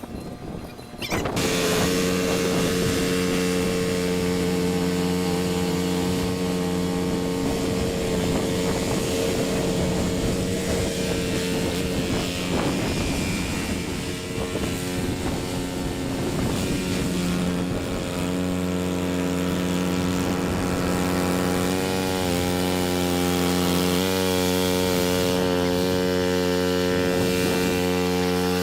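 Cub Cadet 2X 30-inch EFI two-stage snow blower's engine running steadily at working speed. It comes in abruptly about a second in, and its pitch wavers briefly twice near the end.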